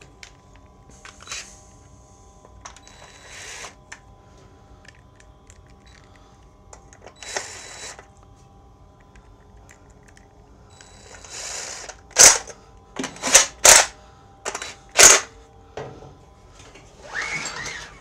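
A cordless drill runs in several short spurts, driving in the bolts that hold the recoil starter on the ETQ TG3000 generator's Honda-clone engine. Then the recoil pull cord is yanked several times in quick, loud strokes, turning the engine over without it starting.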